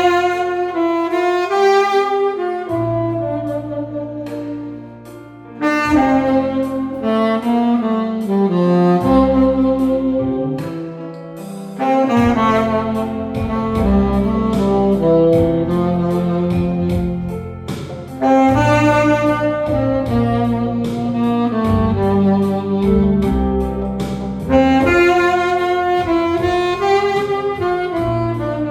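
Tenor saxophone playing a slow, gentle ballad melody in phrases over a backing track with a steady bass line.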